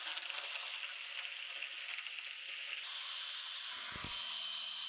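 Hand blender's chopper attachment running, its blade churning an oily egg-and-parmesan sauce into an emulsion, a steady whirring hiss. A brief low thump comes about four seconds in.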